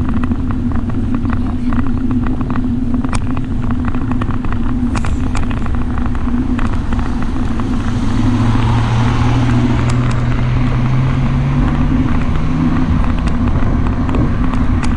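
Wind buffeting and road noise on a camera riding on a moving bicycle, with scattered small clicks. From about eight seconds in, a motor vehicle's engine joins in, its pitch rising for a few seconds.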